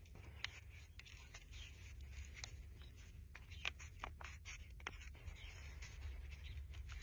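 Thin plastic nursery pot crackling and clicking as it is squeezed and worked in the hands to loosen the plant's root ball: a string of faint sharp clicks over a low steady rumble.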